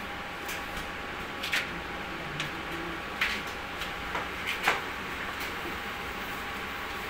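A paintbrush dipped and tapped against a metal bowl of white paint: about nine short light clicks and knocks at irregular spacing. Under them is a steady mechanical hum.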